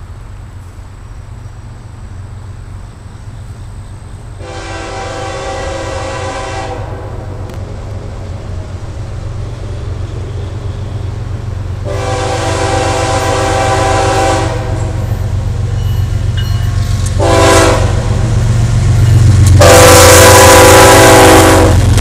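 Diesel freight locomotive air horn sounding the grade-crossing signal: two long blasts, a short one, then a final long blast. Under it, the low rumble of the approaching GE locomotives grows steadily louder until the lead Canadian Pacific unit passes close by near the end.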